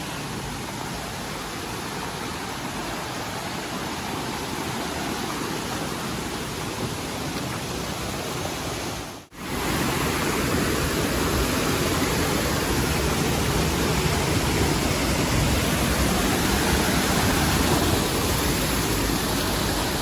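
Steady rush of water from a rocky forest stream and waterfall cascades. It cuts out for a moment about nine seconds in and comes back louder and fuller.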